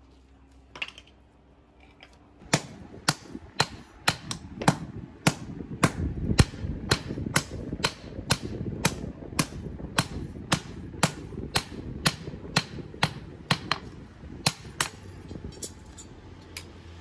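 Hand hammer striking a red-hot steel knife blank, forged from aircraft-bolt steel, on a small round steel anvil stake: sharp, even blows about two a second, beginning about two and a half seconds in and stopping shortly before the end.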